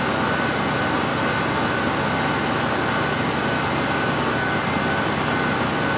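Steady machine hum and hiss of running laboratory equipment, with a faint steady high tone.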